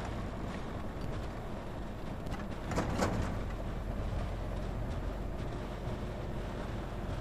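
Open military-style jeep driving at road speed: a steady low engine rumble under wind noise and light body rattles. About three seconds in, a brief louder burst of rattling.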